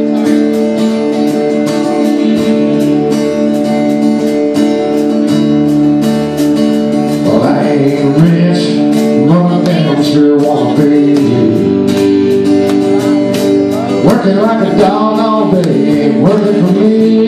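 Live band playing, with guitars and a steady drumbeat; a lead singer comes in about seven seconds in.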